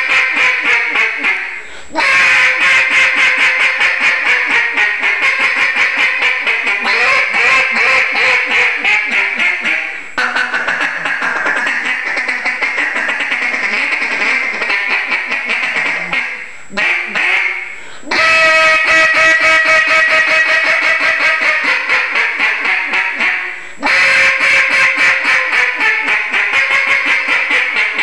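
Gaboon ebony duck call blown in long runs of rapid quacks and chatter, with brief pauses between runs and a stretch of clearer, more drawn-out quacks past the middle.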